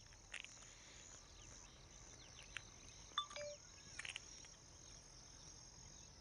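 Faint open-field ambience: a steady high insect chirring, broken by a few faint short chirps and clicks.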